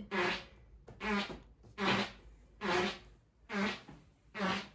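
A man snoring in his sleep during a nightmare, in quick regular bursts: six voiced, groaning snores about one every 0.85 seconds, each with a steady low tone.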